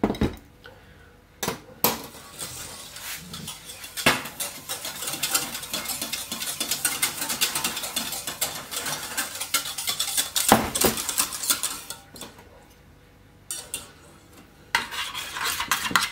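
Wire whisk beating a brown-sugar sauce in a stainless steel saucepan, its wires rapidly clicking and scraping against the pan. A few separate knocks come first, then steady whisking for several seconds, a short pause, and more whisking near the end.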